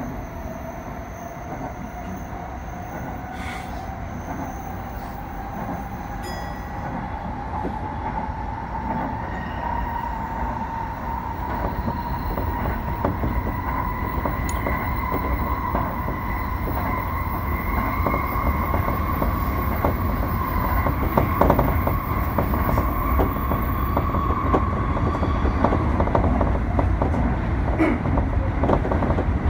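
Tsukuba Express electric train heard from the front car, gathering speed: the traction motor whine climbs steadily in pitch for about 25 seconds over the rumble of wheels on rail, with a few light clicks, then fades out near the end.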